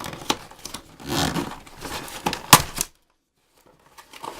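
A cardboard toy box being torn open, with rustling and crinkling packaging and a sharp snap about two and a half seconds in. The sound cuts out completely for a moment near the end.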